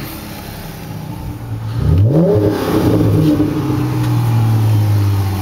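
Dodge Magnum's 3.5-litre V6 running through a Blastin Bobs 10 dB exhaust kit with 4-inch tips: idling, one quick throttle blip about two seconds in, then back to a steady, louder idle.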